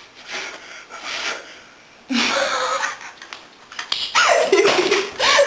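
Stifled, breathy laughter forced out through the nose and closed lips, in loud bursts about two seconds in and again from about four seconds to the end, with brief squeaky rises and falls of voice.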